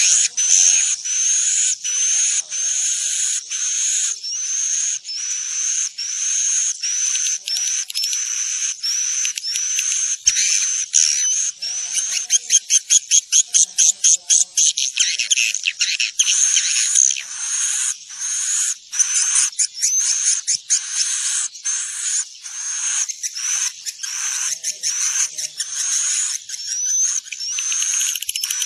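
Edible-nest swiftlets chirping in a dense, unbroken run of short, high, rising chirps, with a fast clicking trill about halfway through. This is a swiftlet roosting call (suara panggil inap), the kind played to lure swiftlets into a nest house.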